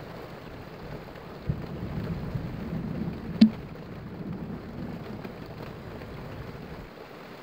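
Thunder rumbling over a steady hiss of rain during a night thunderstorm. A low rumble swells about a second and a half in and dies away by about four seconds, with one sharp click near its peak.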